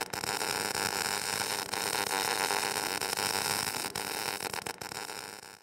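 Electric arc welding on a steel I-beam: the arc gives a steady crackling hiss, with a few brief breaks.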